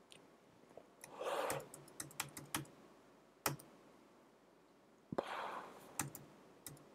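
Faint, scattered clicks of a computer keyboard and mouse, a few irregular taps with pauses between them. Two short breathy rushes of noise come about a second in and again about five seconds in.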